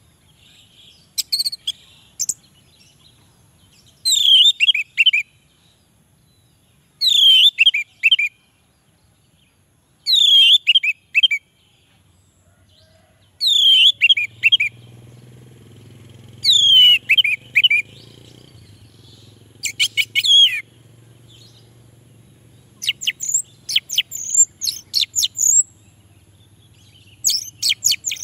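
Orange-headed thrush singing in short phrases about every three seconds, each a clear note sliding down followed by a quick run of notes. In the last few seconds it switches to faster runs of high, sharp notes.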